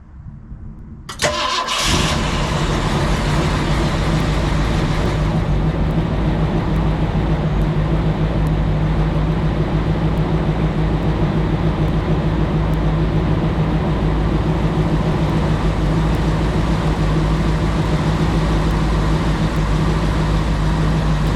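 1967 Ford Thunderbird's 390 FE V8 cranking and firing up almost at once on a cold start after sitting, about a second in, then running steadily at idle.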